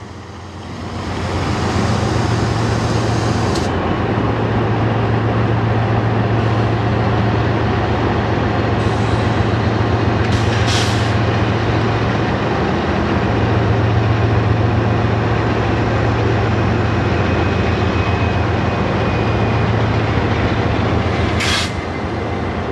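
GE diesel locomotive engines running with a loud, steady low drone that swells about a second in. Two short, sharp hisses of air-brake air break through, one about ten seconds in and one near the end, after which the drone eases slightly.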